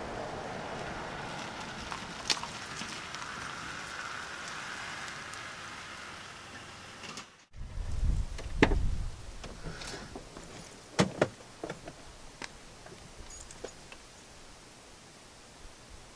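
A car approaching with a steady, fading running noise. Then, after a break, a low rumble and a knock, followed by clicks and knocks as the car's door is unlatched and swung open.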